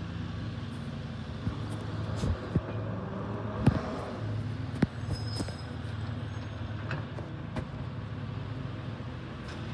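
Distant recycling truck's engine running steadily as a low hum, with a few short sharp knocks between about two and five seconds in.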